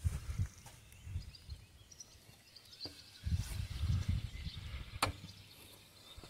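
Outdoor pond ambience: wind buffeting the microphone in irregular low rumbling gusts, with faint bird chirps in the background. There is one sharp click about five seconds in.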